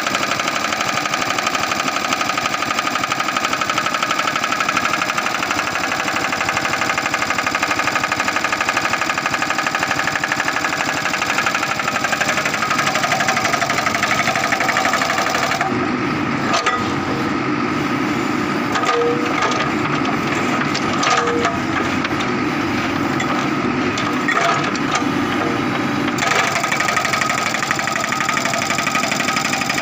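Hydraulic rock breaker on a Manitou backhoe loader hammering into a rock boulder: a rapid, steady pounding over the running diesel engine. For about ten seconds in the middle the sound turns duller.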